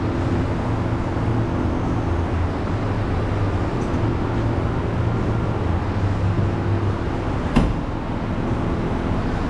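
A steady low drone from a running motor or vehicle, with one sharp knock about seven and a half seconds in.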